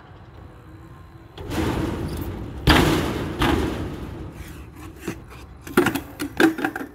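BMX bike riding over concrete, with a rushing tyre noise and one hard thump about a third of the way in. Near the end the loose bike crashes onto the concrete in a quick run of sharp knocks and clatters after the rider bails.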